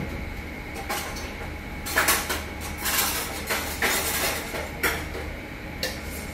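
Metal kitchenware clinking and clattering: a ladle knocking against a stainless steel pot as soy sauce is scooped out, in a string of separate knocks that are busiest in the middle. A steady kitchen hum runs underneath.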